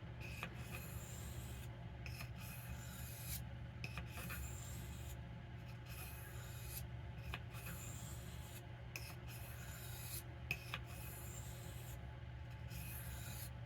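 Knife blade being stroked across an oiled soft Arkansas whetstone, a faint scraping hiss repeated about every second and a half to two seconds.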